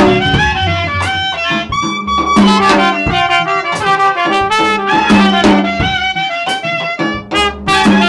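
Live jazz combo playing: a trumpet carries a melody line over walking upright bass notes and drum hits.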